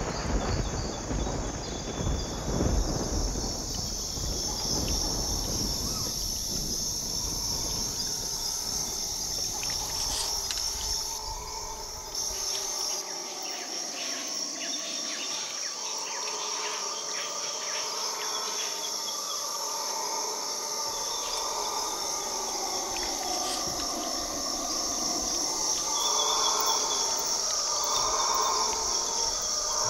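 Steady high insect chorus of the rainforest at night, with a low rumble of thunder dying away over the first dozen seconds. From about halfway in, a distant wavering chorus that rises and falls comes in underneath and swells a little toward the end: howler monkeys calling in the dark.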